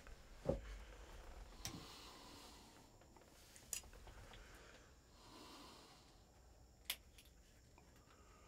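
Near-quiet inside a hunting blind, broken by a low thump about half a second in and a few sharp clicks later on: small knocks of a compound bow and gear being handled.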